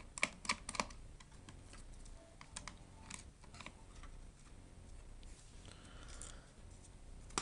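Small, scattered clicks and taps of a screwdriver and fingers working the screws that hold a MacBook's motherboard inside its aluminium unibody case, with a brief scratchy rasp past the middle.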